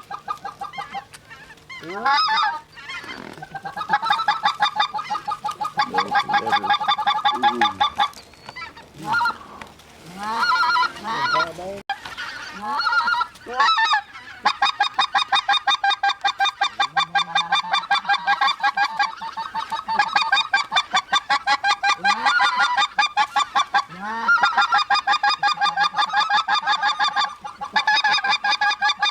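Geese honking: scattered honks that break upward in the first half, then long runs of rapid, evenly spaced clucking honks.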